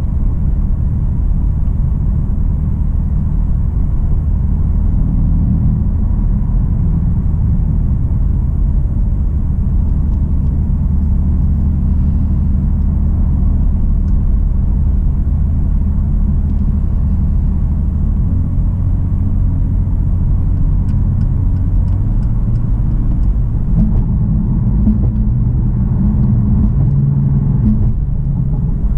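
BMW M3 F80's twin-turbo 3.0-litre straight-six running at light load while driving, under a steady low rumble of road and tyre noise. The engine note shifts in pitch about two-thirds of the way through.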